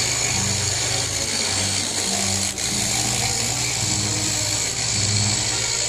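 Scroll saw running steadily, its blade cutting through a thin wooden board, with background music underneath.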